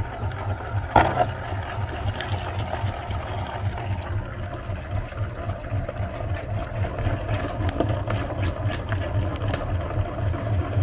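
Electric meat grinder motor running steadily with a fast, even pulsing hum, with a sharp knock about a second in and scattered light clicks later on.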